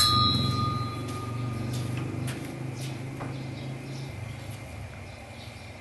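A single metallic strike, like a bell, rings for about a second over a low, steady drone that fades away after about four seconds; a few faint clicks are heard in between.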